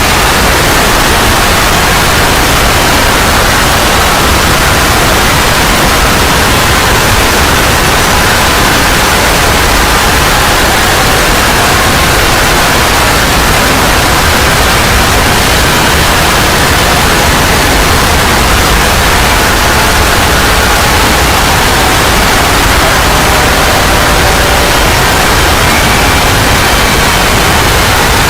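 Loud, steady static noise, a hiss spread across all pitches that never lets up, with faint tones just audible within it.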